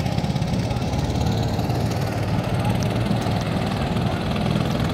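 Motor boat's engine running steadily, a low even rumble.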